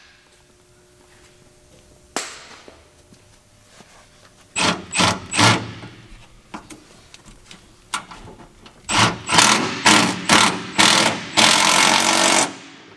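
Cordless impact driver run in short bursts, then in one longer run near the end, driving in the 10 mm bolt that holds the brake-line bracket to the truck frame.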